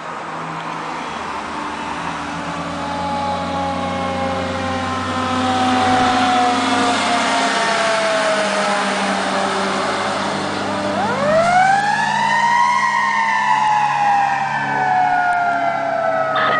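Fire engine's siren wailing as the truck drives past, its pitch sliding slowly down, then rising sharply about eleven seconds in and gliding slowly back down, over the steady drone of the truck's engine. The sound grows louder as the truck draws near.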